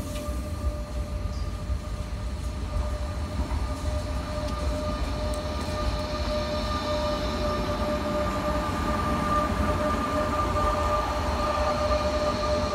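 Renfe class 447 electric multiple unit with a steady electrical whine held at two fixed pitches over a low rumble, growing a little louder in the second half.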